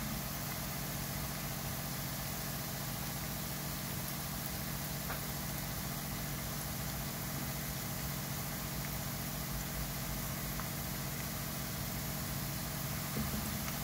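Sliced garlic frying in hot oil in a pan, a steady sizzle, over a low steady hum.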